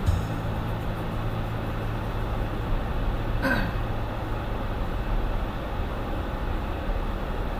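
Steady road and engine noise of a car driving on a snowy road, heard from inside the cabin, with one brief falling squeak about three and a half seconds in.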